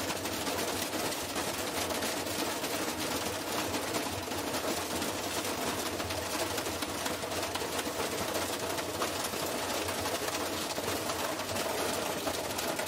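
Washing machine spinning hard with a brick inside the drum: a rapid, continuous banging and rattling over a steady motor whine.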